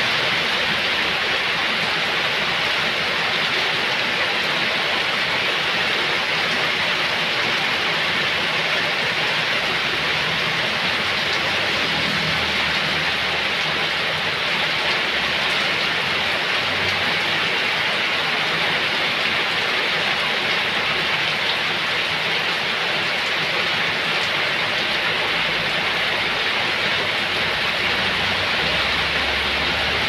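Heavy rain pouring steadily onto flooded pavement and ground, an even, unbroken hiss of splashing drops.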